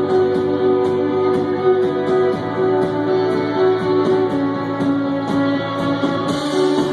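Rock band playing live, with guitars ringing in sustained chords over a steady beat of high ticks. This is an instrumental stretch with no singing.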